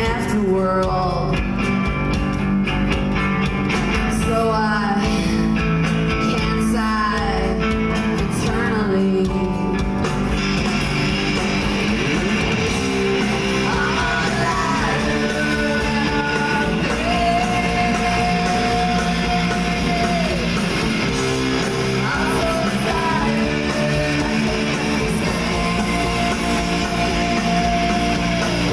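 Live rock band with bass guitar, electric guitar, drums and a woman singing lead. The band comes in fuller about ten seconds in, and the singer holds two long notes in the second half.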